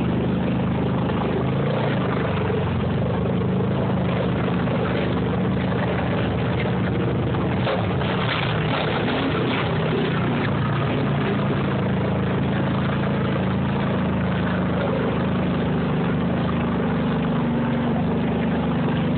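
Off-road vehicle engine running steadily at low speed close by, a continuous low drone that eases a little for a few seconds in the middle and then builds again, as the vehicle drives through a flooded trail.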